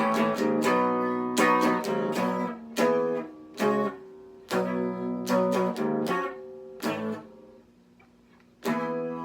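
Guitar played through a new amplifier: a run of chords, each struck and left ringing. The playing stops briefly about three-quarters of the way through, then starts again.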